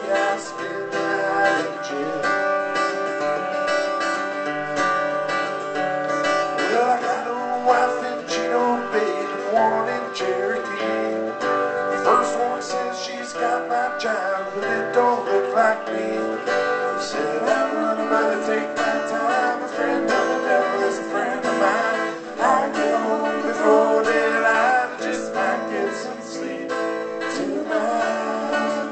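Acoustic-electric guitar strummed through an instrumental break, with a wavering lead melody over the chords.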